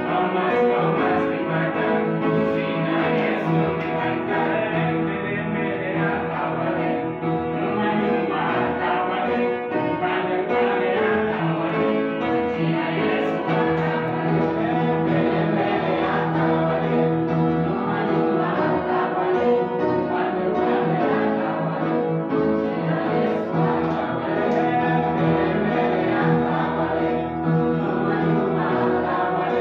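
A small mixed group singing a hymn together to electric keyboard accompaniment, sustained keyboard chords under the voices.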